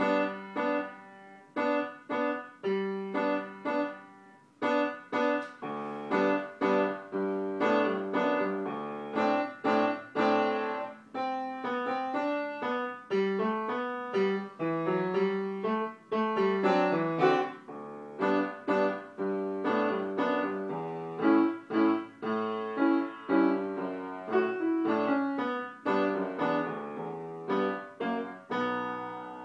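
A child playing a FORO upright piano with both hands: a steady run of struck notes, mostly in the lower-middle register. The playing pauses briefly about four seconds in.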